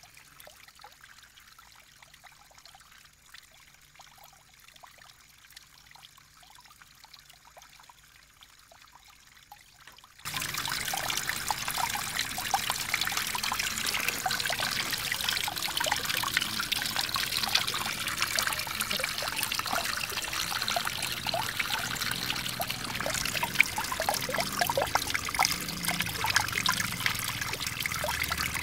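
Water trickling and splashing from a small garden fountain into a stone basin, faint at first, then suddenly much louder and closer about ten seconds in, full of small splashes.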